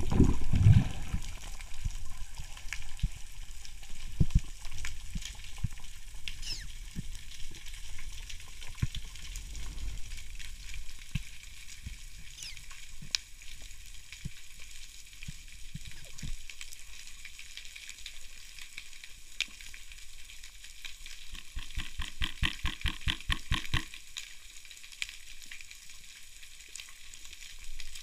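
Underwater ambience heard through a camera housing: a steady crackling with scattered sharp clicks and knocks, after a brief rush of water in the first second. Near the end comes a quick run of about a dozen evenly spaced knocks lasting a couple of seconds.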